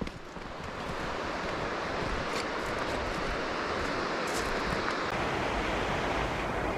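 Rushing water of a mountain stream, a steady rush that swells over the first second and then holds, with a couple of faint clicks partway through.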